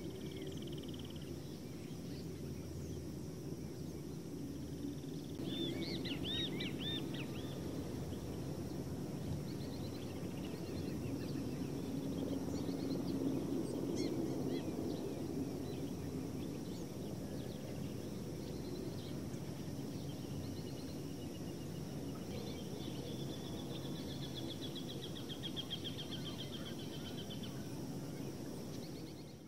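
Steady low outdoor rumble with birds calling over it: a few looping chirps about six seconds in and a long rapid trill later on.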